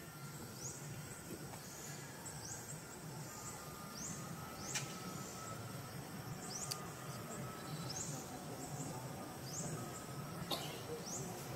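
A high chirp rising in pitch, repeated roughly once a second, over steady low outdoor background noise, with a few sharp clicks.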